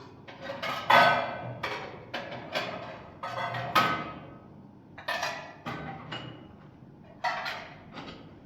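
A series of irregular knocks and clatters of hard objects, about a dozen, several of them ringing briefly after the hit.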